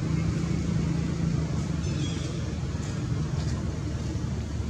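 A steady low rumble of background noise, with a few faint, brief high chirps about two seconds in.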